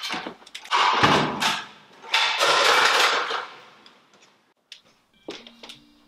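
Two loud bursts of rushing noise, each about a second long. The first opens with a low thump and the second fades out slowly. A few held musical notes come in near the end.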